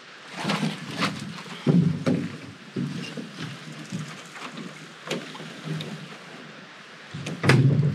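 A canoe being lowered from the shoulders and set down on a rocky lakeshore: irregular knocks and scrapes of the hull against stones. The loudest come about two seconds in and again near the end.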